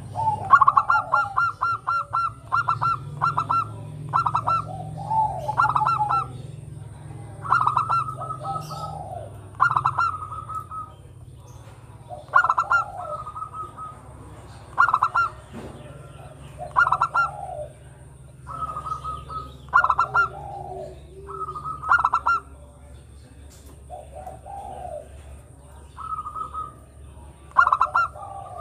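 Local zebra dove (perkutut, Geopelia striata) singing its staccato cooing song: phrase after phrase, each a quick run of clipped high notes followed by a lower rolling coo, about one phrase every one to two seconds.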